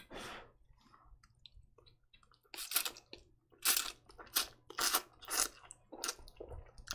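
A person eating instant kimchi ramen noodles close to the microphone. After a quiet stretch, a rapid run of chewing noises starts about two and a half seconds in.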